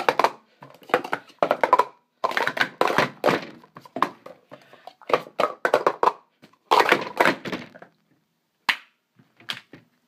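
Plastic Speed Stacks cups clattering in quick runs of clicks and knocks as they are stacked up and down in a cycle stack. The clatter stops about eight seconds in, followed by a few separate taps.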